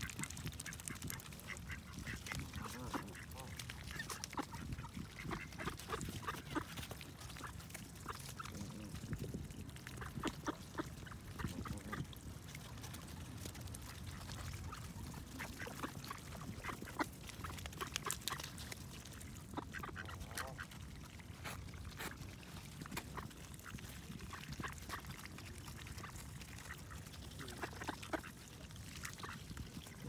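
Canada geese and mallard ducks feeding close by: many irregular short clicks of bills pecking and dabbling at seed on wet, icy ground, with occasional duck calls.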